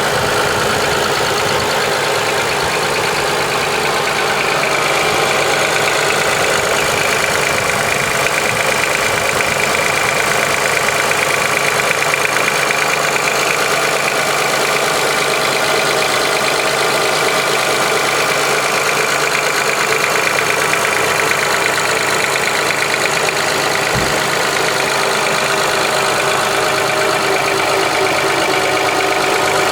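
2005 Honda Accord's 3.0-litre V6 idling steadily with a fast, even ticking that the owner cannot place: piston slap, valve ticking or injector clicking. There is one short low thump late on.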